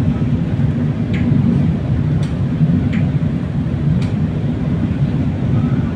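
Inside a moving LRT Line 1 light-rail car: the steady low rumble of the train running on the track, with a few short high squeaks about once a second.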